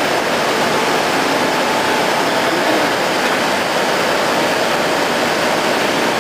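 A steady, loud rushing noise with a faint hum in it.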